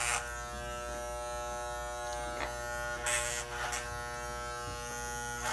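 Electric hair clippers running with a steady buzz while cutting a child's hair, with a few short hissing bursts over the buzz.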